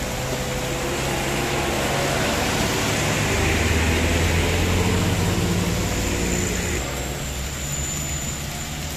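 Road traffic passing on a wet road: engines of pickup trucks and minibuses going by, loudest about halfway through, over a steady hiss of tyres on the wet surface.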